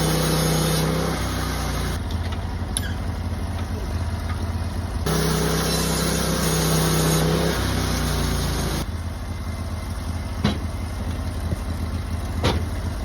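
Small engine of a portable sawmill running steadily while a Douglas fir beam is milled, its hum changing abruptly several times. There are a couple of sharp clicks near the end.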